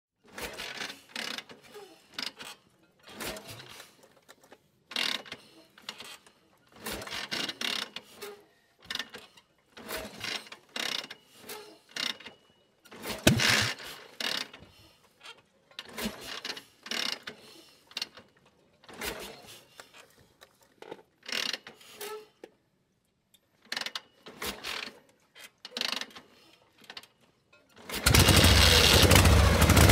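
Metal gear shifting: repeated short bursts of metallic clicking and clunking, one about every one to two seconds with brief pauses between. Near the end a much louder steady running noise with a low hum starts suddenly.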